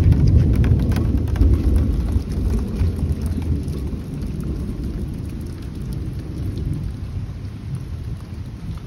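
Thunderstorm noise: a heavy low rumble, loudest in the first couple of seconds and dying away over the next several, over a faint hiss of rain.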